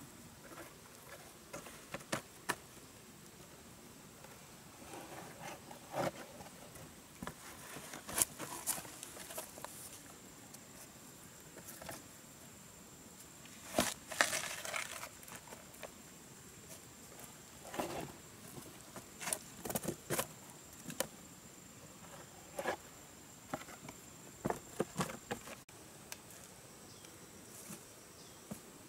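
Intermittent rustling, crackling and tapping of dry tree bark being pressed flat by hand, with a louder cluster of scraping and knocking about halfway through as a lump of rock is set on the bark. A steady thin high insect whine runs underneath until shortly before the end.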